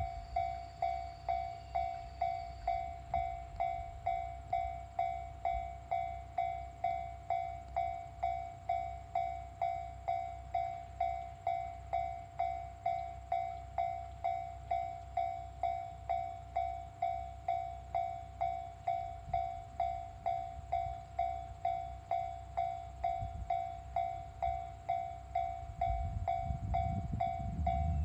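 Japanese railway level-crossing warning bell ringing steadily, its electronic ding repeating evenly about twice a second, over a low rumble that grows louder near the end.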